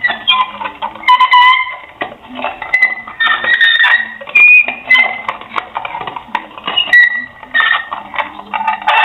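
A rapid run of short, high squeaks and creaks, some sliding briefly in pitch, mixed with clicks.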